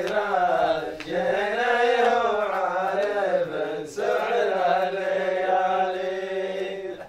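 A man chanting a line of Arabic poetry in a long, drawn-out melody, in three long phrases with his voice held and wavering on each note.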